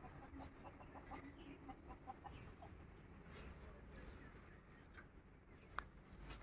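Faint clucking of local chickens: a run of short, soft calls in the first half, then a single sharp click near the end.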